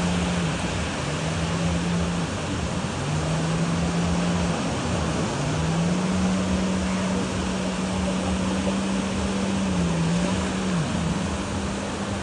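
Motorboat engine running with a steady drone that cuts out and returns several times and dips and rises in pitch, over a constant rush of wind and water.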